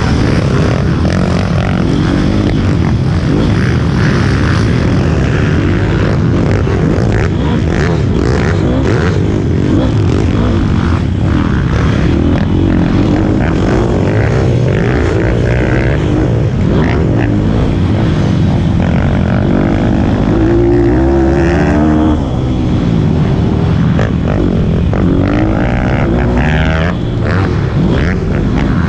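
Pit bike's small single-cylinder four-stroke engine at race pace, the revs rising and falling through the gears with a clear climb about twenty seconds in, heard close up from the rider's helmet with a steady rush of wind noise.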